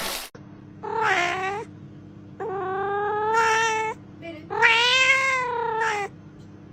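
A domestic cat meowing: three long, drawn-out meows, each rising and then falling in pitch, with a fourth beginning near the end, over a steady low hum.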